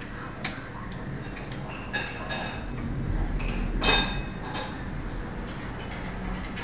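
Washing machine running with a steady low hum, with a series of sharp, ringing clinks from hard objects knocking inside it. The loudest clink comes about four seconds in.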